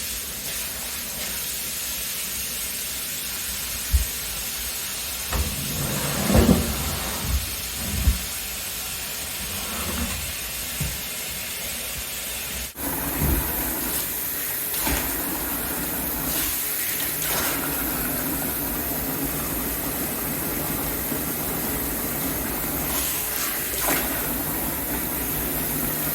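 Tap water running into a bathtub with a steady hissing rush, filling a shallow soaking bath. Several short knocks and bumps come between about four and eight seconds in, and after an abrupt change about halfway the rush sounds fuller and brighter.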